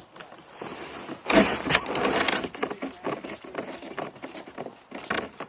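Rustling and irregular knocking, loudest with two sharp knocks about a second and a half in.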